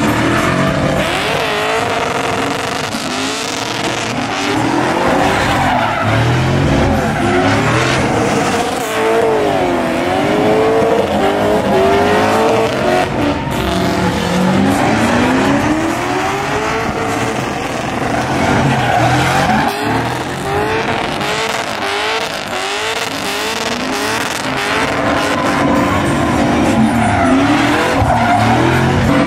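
Car engines revving hard, their pitch sweeping up and down again and again, over steady tire squeal and screech as a BMW 3 Series sedan and a Chevrolet Silverado pickup spin donuts and slide.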